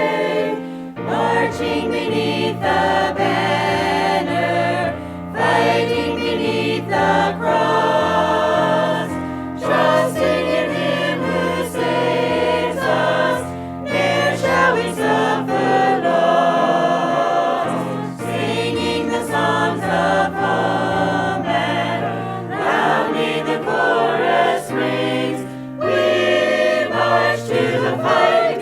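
A choir singing a song with instrumental accompaniment, held low bass notes changing step by step beneath the voices.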